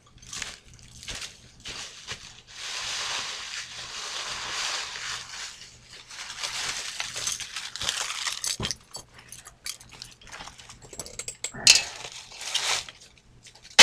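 Rustling and crunching handling noise with scattered light clicks and clinks, as dry tinder and fire-making gear are handled, and one short sharp scrape near the end.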